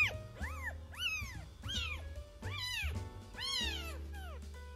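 A week-old kitten mewing over and over: thin, high cries that rise and fall in pitch, about two a second.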